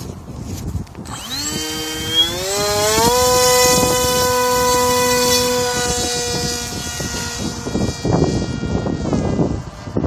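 A 1600-watt electric RC plane's motor and propeller spinning up with a steeply rising whine about a second in, then holding a steady, high whine at full throttle as it flies off; the pitch sinks a little and drops a step near the end. Wind buffets the microphone underneath.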